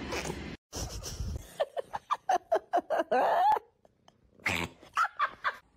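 A cat giving a quick run of short, pitched cries that sound like laughing, ending in one longer drawn-out cry; after a pause of about a second come a few more short cries.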